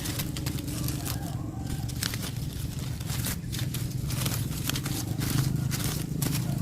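Irregular crackling and rustling clicks over a steady low hum.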